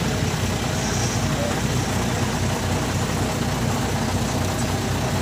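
A motor vehicle's engine idling steadily, a constant low rumble.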